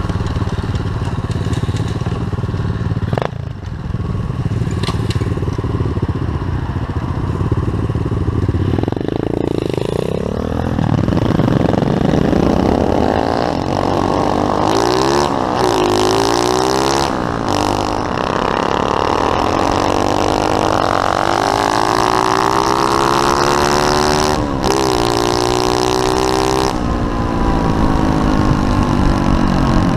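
Pit bike's single-cylinder four-stroke engine running steadily, then revved and ridden from about nine seconds in, its pitch climbing and dropping again and again as it accelerates and eases off.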